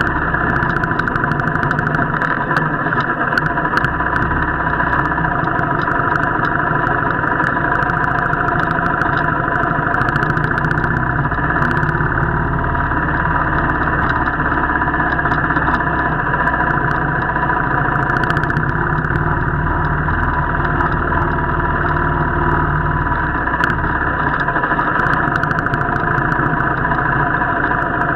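Royal Enfield motorcycle engine running steadily while being ridden, with scattered short clicks and knocks throughout.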